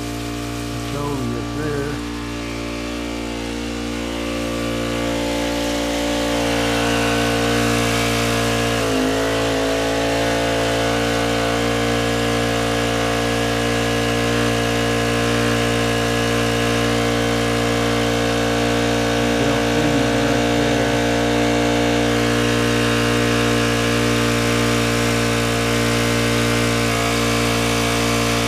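Honda engine-driven water pump running steadily, its small four-stroke engine giving a constant hum. It grows louder from about four to seven seconds in, and about nine seconds in its pitch dips briefly and recovers.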